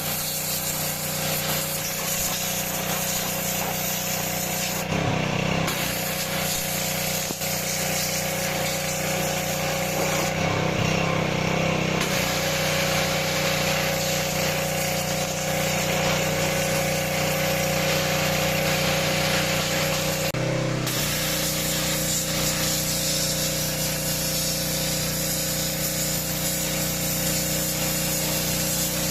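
INGCO GHPW2003 gasoline pressure washer's 6 HP petrol engine running steadily while the high-pressure water jet sprays with a constant hiss. The spray hiss drops out briefly three times, about five, ten and twenty seconds in.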